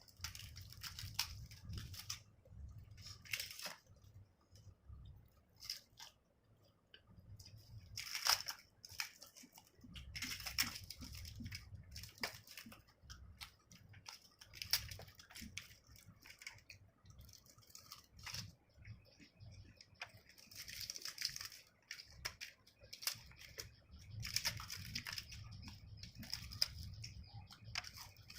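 A person eating close to the microphone: chewing and biting chicken curry and poori, with irregular wet clicks and tearing sounds.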